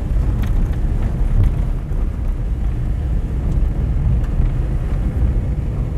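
Small car driving on a gravel road, heard from inside: a steady low rumble of engine and tyres on gravel, with a few faint knocks.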